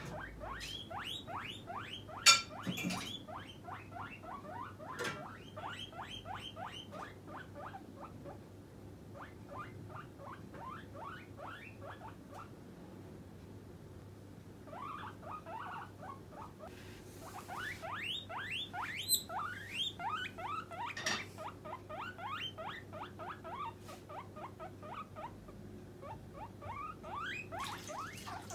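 Guinea pig wheeking, its demand call for food: long runs of short rising squeaks, several a second, with a brief pause partway through. A few sharp clicks, the loudest about two seconds in.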